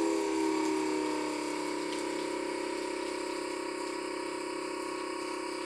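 Electric booster pump fitted to an X-ION Lite RO water-purification system running just after being switched on: a steady hum with a few held tones, a little louder at first and then settling. It is pumping water through the RO unit and out of the hose, roughly doubling the flow.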